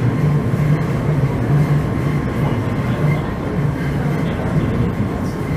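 Oslo Metro train running along surface track, heard from inside the car: a steady low rumble of wheels on rails and running gear.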